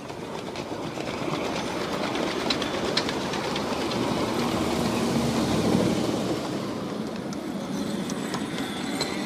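Ridable-scale model Norfolk & Western class A steam train rolling past at rail level. Its wheels rumble and click over the rail joints, the sound building as the locomotive and tender draw level and easing off after about six seconds as the riding cars follow.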